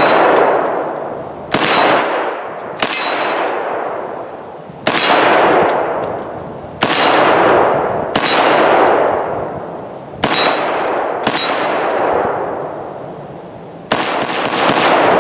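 A 7.62x39 AR-15 rifle firing about eight single shots at an uneven pace, one every one to two seconds. Each shot trails off in a long rolling echo.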